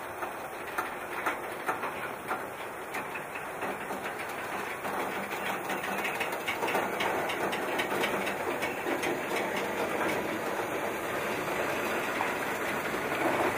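Covered hopper freight cars rolling slowly along a yard track, their steel wheels clicking irregularly over the rails with a low rumble that grows gradually louder.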